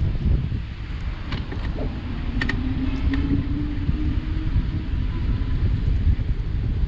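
Wind rumbling on the microphone while riding a Cowboy C4 e-bike. A few short clicks or creaks come in the first half, the kind of crank/bottom-bracket creak the bike has developed.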